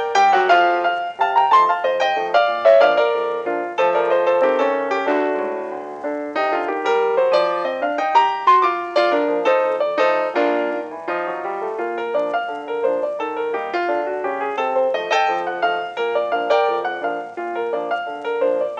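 Background piano music: a fast run of struck notes that keeps going throughout.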